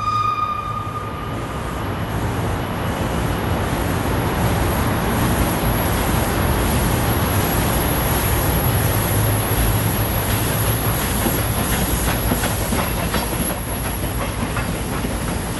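Pacific steam locomotives 824 and 850 running past with their train: the last of a whistle note fades out about a second in, then a steady rumble with a regular beat, and sharp wheel clicks over the rail joints as the engines and carriages go by near the end.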